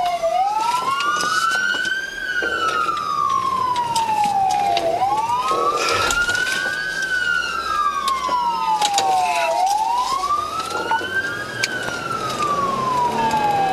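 Police car siren on a slow wail, its pitch rising and falling about every four and a half seconds. A second siren sometimes sounds slightly out of step with it.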